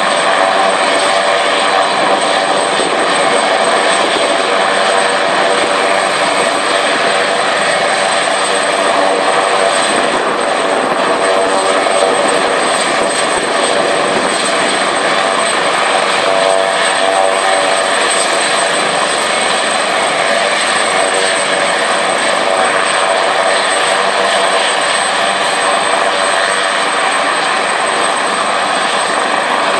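AgustaWestland AW139 twin-turbine helicopter running on the ground with its rotors turning before lift-off: a steady loud turbine whine with a thin high tone over the rotor and engine noise.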